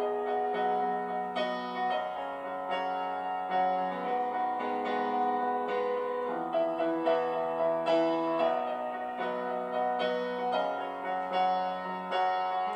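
Instrumental piano music from a backing track, without singing: sustained chords with new notes struck every second or so.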